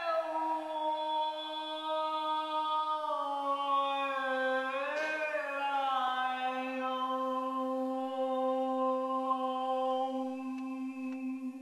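A single wordless voice singing long held notes. It slides slowly down at the start, swoops up and back down about five seconds in, and fades near the end.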